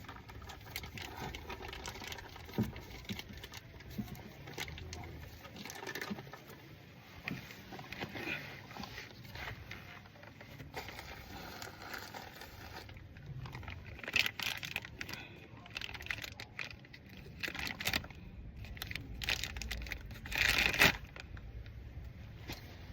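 Scattered handling noises: light clicks, scrapes and rustling, with a louder rush of noise about twenty seconds in.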